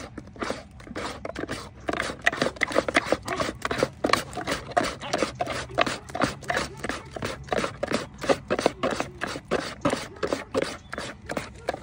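A spoon scraping thick dog-food mash out of a cooking pot, in quick repeated strokes about three a second.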